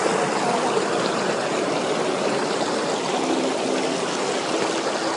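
Mountain stream rushing steadily over boulders, an even, unbroken wash of water.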